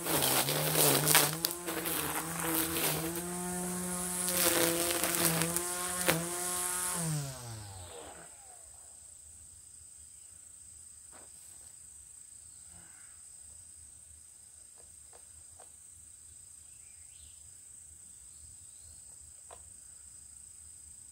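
Cordless string trimmer running with a steady whine, its line clicking and ticking against weed stems, then winding down in pitch and stopping about seven seconds in. After that only a faint steady high-pitched tone and a few small ticks remain.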